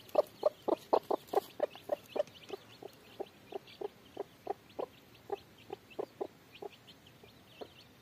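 Domestic chickens clucking: a run of short clucks, about four a second and loud for the first two seconds, then slower and fainter, with faint high chirps above them.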